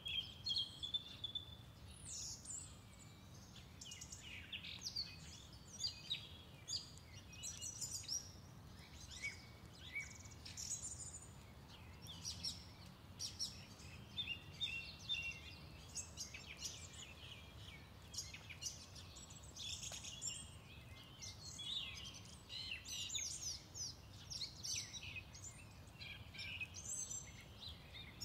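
Faint birdsong: several birds chirping and singing in many short, quick, overlapping notes, over a faint steady low hum.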